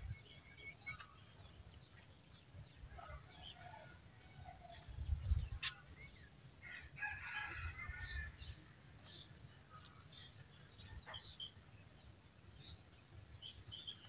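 Chickens clucking amid scattered short, high bird chirps, with a denser run of calls about seven seconds in, over intermittent low rumble.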